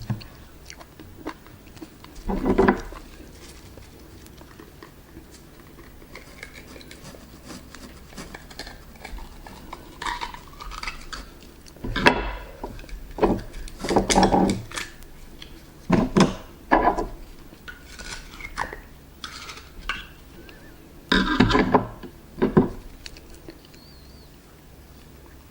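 Oyster shells and utensils clinking and clattering against a plate, in short scattered bursts with pauses between.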